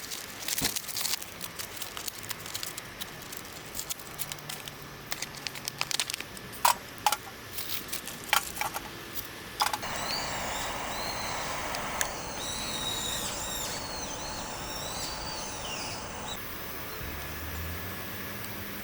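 Burning firewood crackling, with sharp irregular pops for the first half, then settling into a steady hiss with high, wavering whistles for several seconds.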